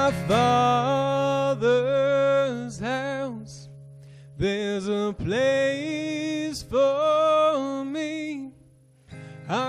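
A man singing a slow worship song in long held notes, accompanied by acoustic and electric guitars. The music drops away briefly near the end before the singing resumes.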